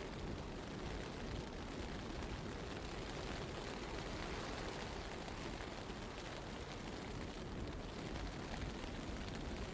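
Blizzard wind blowing steadily: an even, dense rush of noise, heaviest in the low end, with no let-up.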